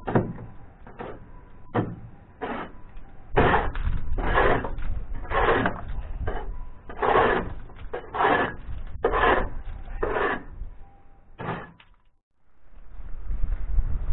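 Fouling being scraped by hand off the bottom of a boat hull, in rough rasping strokes about once a second. It stops about two seconds before the end, and a different steady noise takes over.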